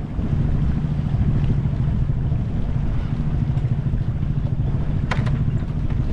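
Sailboat's inboard auxiliary engine running steadily at low speed while motoring through the marina, a constant low hum, with wind on the microphone and a couple of light clicks about five seconds in.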